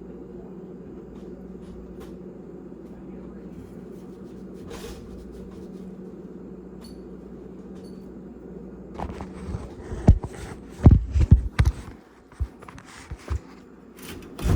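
A steady low hum with faint ticks, then from about nine seconds in a run of heavy knocks, bangs and scraping as the old, heavy air conditioner unit is shifted and pulled out of its opening. The bangs are loudest a second or two after they start, with a few more near the end.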